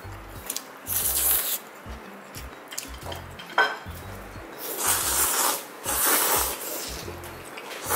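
Thin noodles in cold broth slurped several times, in short hissy pulls, with a sharp clink of chopsticks against a ceramic bowl a little over three and a half seconds in.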